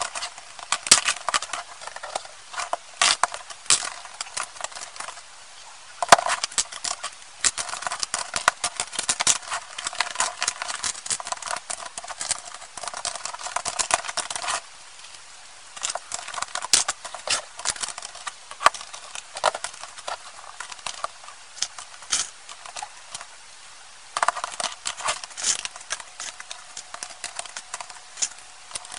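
Plastic Lego bricks clicking and clattering as they are snapped together and handled, sped up to a rapid patter of small clicks, with two short lulls.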